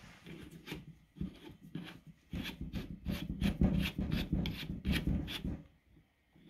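Hand-handling noise on a corded impact drill: rubbing and scraping, faint and scattered at first, then a run of quick rasping strokes about three a second before it stops near the end.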